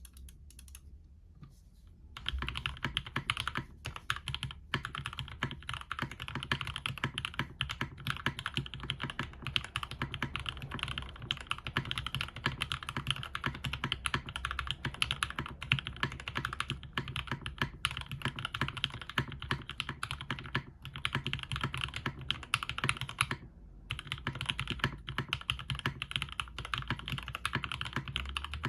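Fast continuous typing on a custom 60% mechanical keyboard with Gateron Ink linear switches on a UHMWPE plate and GMK keycaps, a dense run of keystroke clacks that starts about two seconds in, with a couple of brief pauses.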